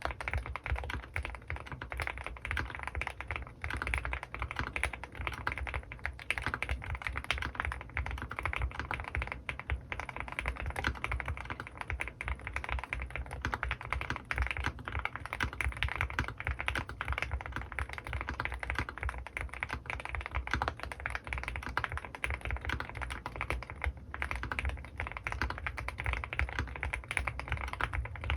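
Continuous fast typing on a custom mechanical keyboard, an Owlab Mr.Suit with lubed Gateron North Pole linear switches and GMK keycaps, the keystrokes coming in a dense, unbroken run.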